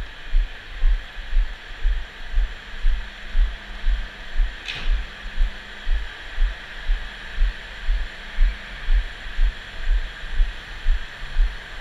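Low rhythmic thumping about twice a second, picked up through a handlebar-mounted camera on a bicycle riding along, over a steady hiss of background noise. A brief high squeak about five seconds in.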